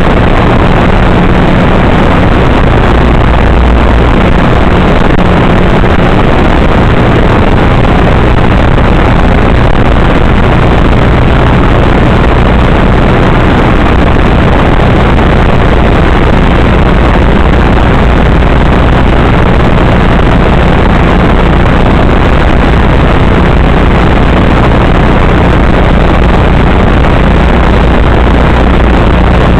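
Loud, steady static hiss with a low hum underneath, unchanging throughout: the noise an analog FPV video receiver's recorder picks up in place of real sound.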